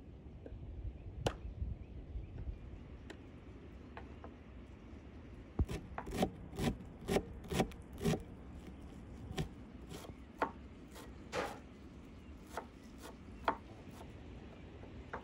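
Knife chopping fresh cilantro and green onion on a wooden cutting board. A run of sharp chops comes about two a second starting about a third of the way in, then slows to single chops about once a second.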